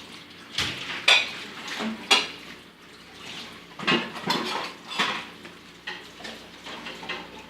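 Dishes and cutlery clattering: a run of sharp clinks and knocks at irregular intervals, loudest near the start.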